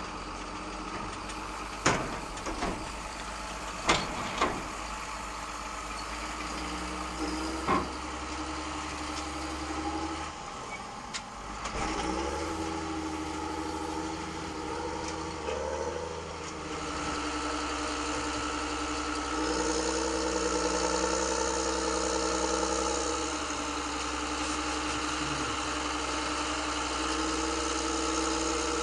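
Radio-controlled model construction machines, a metal excavator and a model articulated dump truck, running with a steady engine-like hum. In the first eight seconds there are four sharp clatters as rocks drop into the dump bed. From about 17 seconds in the running sound grows louder and steadier.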